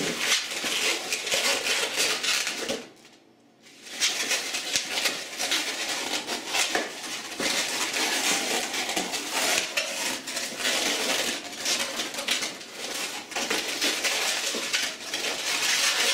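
Latex 260 modelling balloon squeaking and rubbing under the fingers as a bubble is twisted off: a dense, continuous run of squeaks and creaks, broken by a pause of about a second near three seconds in.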